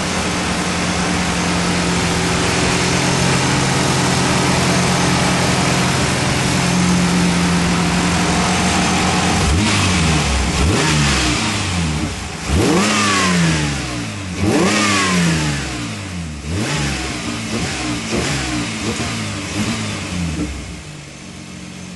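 Fuel-injected GM 3.1L V6 running with its electric radiator fan blowing. From about ten seconds in, the throttle is blipped by hand several times, the engine revving up and falling back to idle each time. Near the end the fan noise drops away as the radiator fan shuts off.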